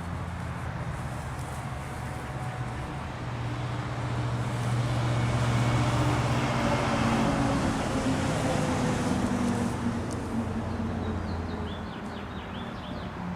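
Road traffic: a vehicle passes, swelling about four seconds in and fading away by about ten seconds, over a steady low hum. A few bird chirps come near the end.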